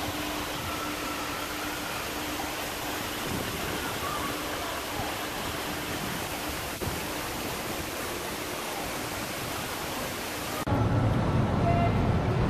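Water from the Banpo Bridge fountain jets pouring down into the river, a steady rushing hiss. A little over ten seconds in it cuts to a louder low rumble.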